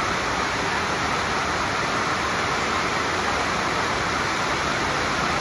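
A steady, even hiss with no voices or distinct events.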